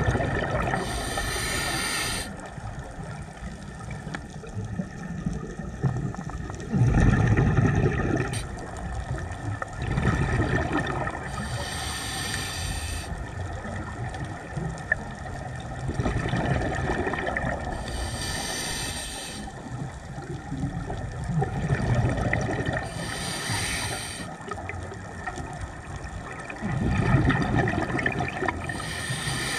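Scuba diver breathing through a regulator underwater: a short hissing inhale about every five to six seconds, alternating with low bubbling bursts of exhaled air.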